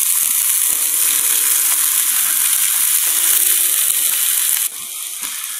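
A pollock fillet sizzling in hot oil in a frying pan of potatoes and onions as it is pressed down, a steady hiss that drops in level near the end.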